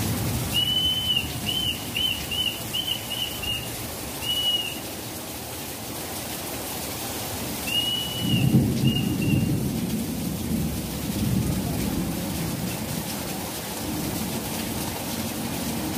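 Heavy rain falling steadily in a downpour, with a low rumble of thunder swelling about eight seconds in. A bird chirps a quick string of short high calls in the first few seconds and again around the rumble.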